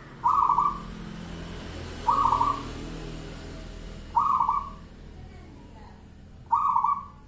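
Zebra dove (perkutut) cooing: four short coos about two seconds apart, each lasting about half a second.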